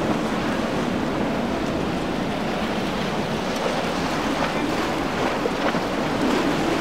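Steady rush of surf and wind buffeting the microphone as a Boston Whaler cabin cruiser runs past at speed, its engines a low drone under the hiss of its wake and spray.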